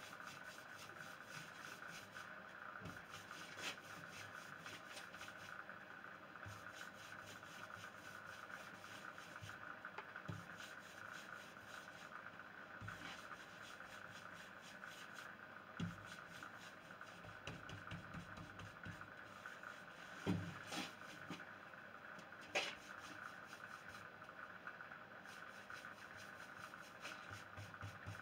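Faint rubbing of Briwax paste into a stripped pine door by hand, with a few light knocks and clicks at intervals over a steady faint hum.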